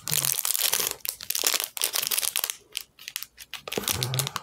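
Crinkling and rustling of a makeup brush's wrapper as it is handled and unwrapped. A dense patch of crackles in the first half thins to scattered clicks later on.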